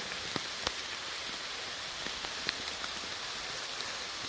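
Steady rain falling on trees and long grass: a constant hiss with a few louder single drops scattered through it.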